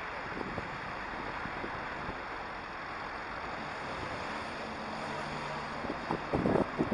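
Steady city street noise of road traffic, with wind on the microphone; a few louder gusts buffet the microphone near the end.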